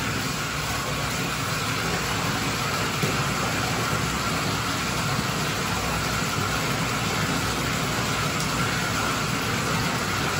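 Water running steadily into a bathtub full of soapy water: an even, unbroken rushing noise.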